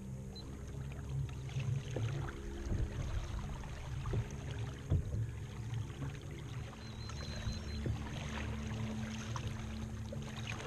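Water sloshing and splashing against a fishing kayak's hull and outrigger floats, with irregular small splashes over a steady low hum.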